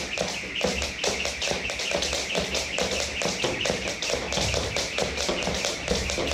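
Jump ropes slapping the floor in a quick, regular run of taps as people skip, over background music.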